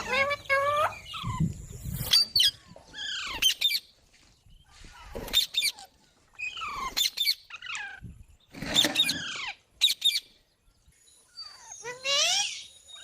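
Green parrot calling: a run of short squawking calls that fall in pitch, one burst every second or two.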